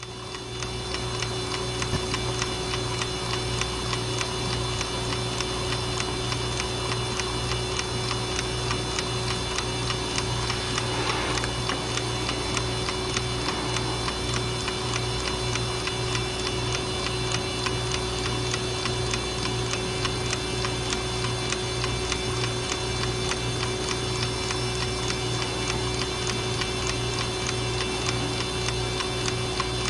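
Westclox wind-up alarm clock ticking steadily with fast, even ticks over a constant low hum, with a brief soft rustle about eleven seconds in.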